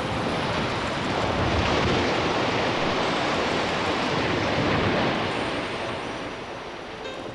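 Long, loud rush of noise from the colliery's headgear towers coming down after the demolition charges are fired. The noise fades over the last two seconds.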